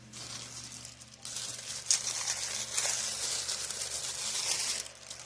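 Crinkling and rustling of seed-pack packaging being handled and opened, starting about a second in, with a sharp click about two seconds in.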